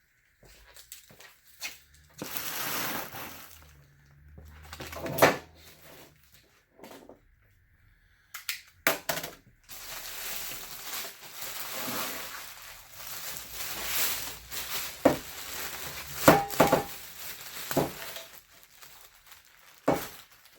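Handling of packaging and metal saw parts: rustling and scraping broken by several sharp knocks and clatters.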